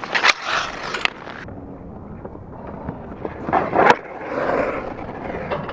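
Hockey shots with a quick release: the stick blade scrapes across the ice in the wind-up and the puck is snapped away with sharp cracks. There are two loud cracks, just after the start and about four seconds in, with lighter clicks in between.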